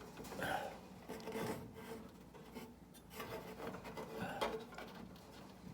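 Faint, irregular rubbing and scraping as a hand works the wire connectors inside a space heater's housing, shaking them to find the loose one.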